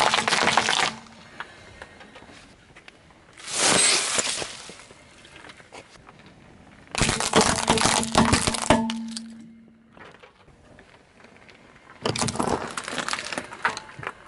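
A car tyre rolling over and crushing small objects, plastic toys and a plastic cup among them, four times: separate bursts of cracking and crunching, each a second or so long, about every three to four seconds.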